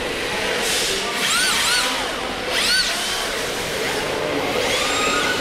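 Electric motors of several RC drift cars whining, the pitch rising and falling in quick arcs with each throttle blip, over a steady hiss of the cars sliding.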